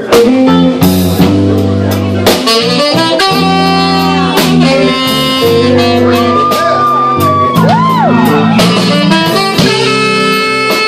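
Saxophone solo over a live blues band, with drums keeping time underneath. The sax holds long notes and bends the pitch up and down in the middle.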